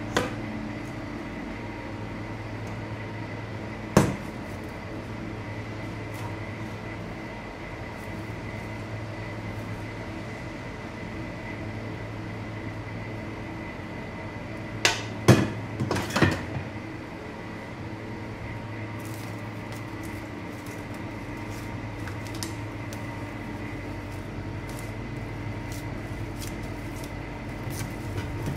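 Spatula and stainless steel mixing bowl knocking and scraping as pastry dough is tipped out onto a steel counter: one sharp metal knock about four seconds in, then a quick cluster of knocks around the middle. A steady background hum with a faint high whine runs underneath.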